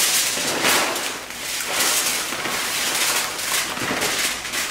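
Tortilla chips poured from their bag onto a foil-lined tray: the bag rustles and the chips clatter and crackle as they land and slide on the foil, a dense run of small crunchy clicks.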